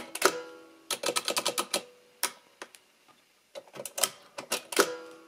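Contex 10 mechanical calculator being operated: its main plunger lever and mechanism clatter in two quick runs of clicks with a short metallic ring, about a second in and again near the end, with single clicks between them.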